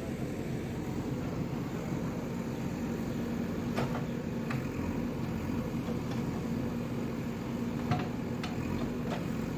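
JCB excavator's diesel engine running steadily, with a few faint knocks partway through.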